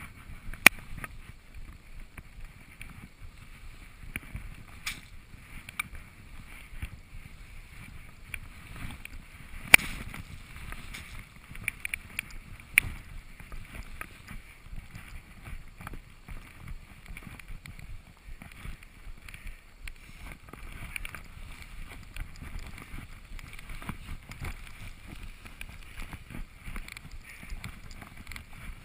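Skis running through deep powder snow: a steady rough swishing with wind noise on the microphone, broken by a few sharp knocks.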